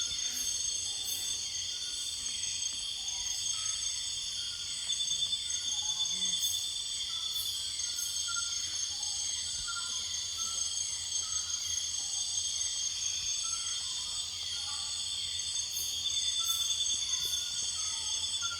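Rainforest insect chorus: several crickets and other insects trilling steadily at high pitch, with a steady train of short falling chirps and scattered short calls from other animals over it.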